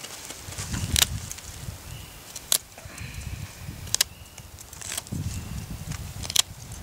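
Fixed-blade knife carving a wooden spoon blank cut from a tree limb: five sharp snaps spaced about a second apart as the blade bites through the wood and shavings come off, over a low rumble.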